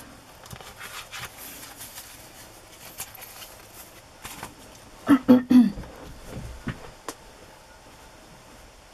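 Quiet handling of a hardback book cover and paper on a cutting mat: faint rustles and light taps, with a brief louder sound about five seconds in.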